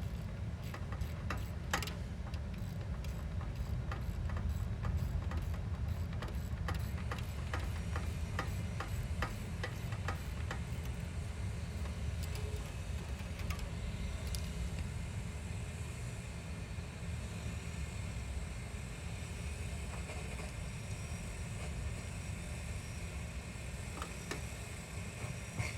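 Ratcheting 7/16 inch socket wrench clicking as it backs the nuts off the bolts holding the wheel adapter to the hub. There are about two clicks a second for the first ten seconds, then only occasional ones, over a steady low rumble.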